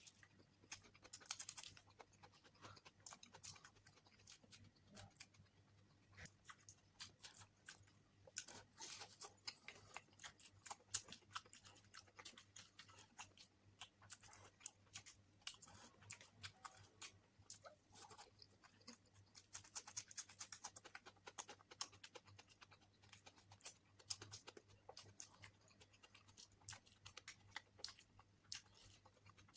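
A person chewing and eating spicy eggs close to the microphone: soft, irregular wet mouth clicks and smacks throughout.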